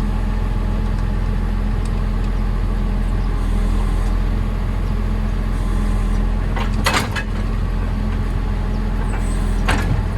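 Tractor's diesel engine running steadily, powering the folding of a mounted mower. A few short sharp clatters or hisses stand out about seven seconds in and again near the end.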